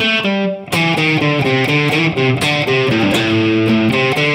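Distorted Stratocaster-style electric guitar playing a riff of quick notes, the unplayed strings muted by the picking hand's palm and the fretting fingers so they don't ring along. The result is a cleaner sound with fewer unwanted noises.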